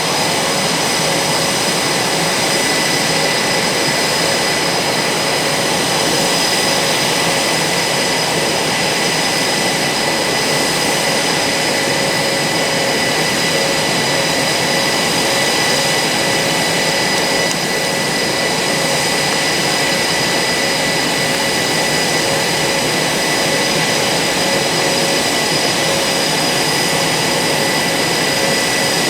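Blue Angels F/A-18 Super Hornet twin turbofan jet engines running steadily on the ground, heard close up. Several constant high whine tones ride over the loud jet hiss.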